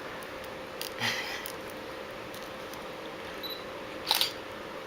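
Camera shutter clicking twice, once about a second in and again near the end, as photos are taken.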